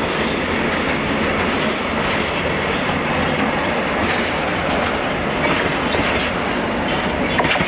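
Freight train of covered sliding-wall wagons rolling through at speed, a steady loud rumble with the wheels clattering on the rails and a few sharp high clicks in the second half.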